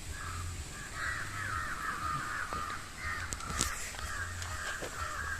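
Birds calling outdoors: a quick run of short repeated calls about a second in, with further calls through the rest.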